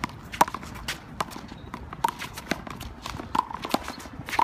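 Handball rally on a one-wall court: the rubber ball smacking off players' hands and the concrete wall, mixed with sneakers squeaking and scuffing on the concrete, in an irregular run of sharp hits.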